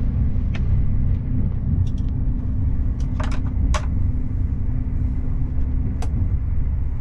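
Steady low rumble of a Talgo sleeper carriage running at night, heard from inside the compartment, with a few light clicks and knocks scattered over it.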